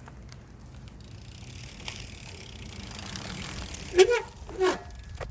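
BMX bike rolling with its Shadow Conspiracy Symbol four-pawl cassette hub freewheeling and clicking. Near the end, two short, loud pitched sounds about half a second apart.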